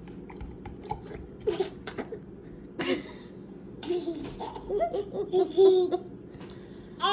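A toddler laughing: a few short giggles, then a longer run of laughs from about four to six seconds in.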